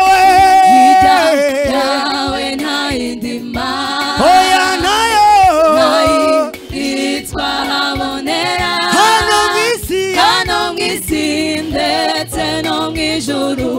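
Gospel worship team singing through microphones: a male lead voice with a choir of men and women joining in, the melody sliding and bending.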